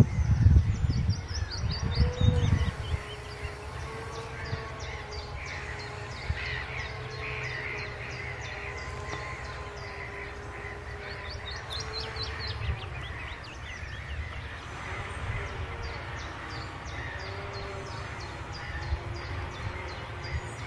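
Birds singing in quick, high chirps and trills over the faint, steady drone of a distant tractor engine. A low rumble covers the first two seconds.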